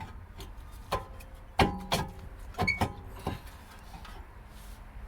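Steel brake disc being pushed onto the rear hub of a BMW 320d, knocking and clanking with a brief metallic ring about half a dozen times, the loudest pair about a second and a half to two seconds in. The disc is catching on the handbrake shoes, whose adjuster needs backing off.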